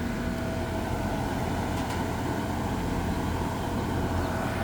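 Pool heating equipment running: a steady mechanical hum with a low rumble and two steady tones.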